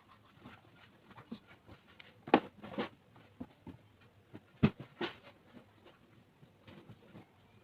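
Hands handling a DVD boxset and its contents: soft rustling with scattered light taps and clicks, and two sharper knocks about two and a half seconds apart.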